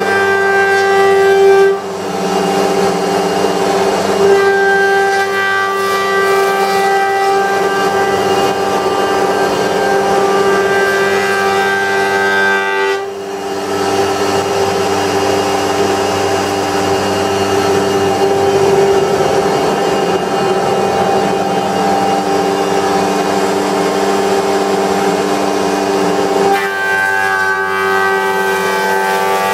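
Wood-Mizer planer running with a steady pitched whine. A rougher rushing noise lies over it for most of the stretch, dips briefly about halfway, and falls away near the end, leaving the plain whine.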